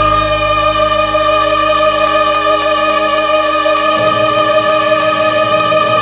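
Alto saxophone holding one long, steady note over instrumental accompaniment.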